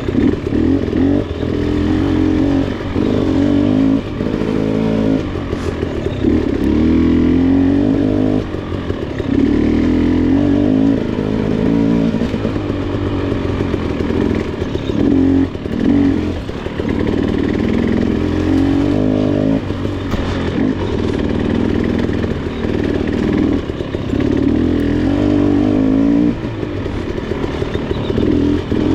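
KTM 300 XC's two-stroke single-cylinder engine under way on a dirt bike, the throttle opening and easing off every second or two. Knocks and clatter come from the bike over rough ground.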